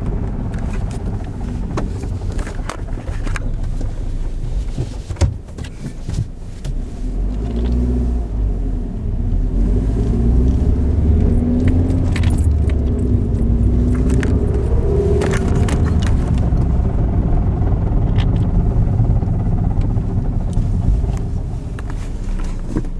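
A 1997 Ford Escort's 5-speed manual transmission rattling and clicking while the car coasts, over engine and road rumble. From about seven seconds in, the rumble grows louder with a wavering drivetrain tone and the clicks thin out. The rattle comes from a faulty manual transmission.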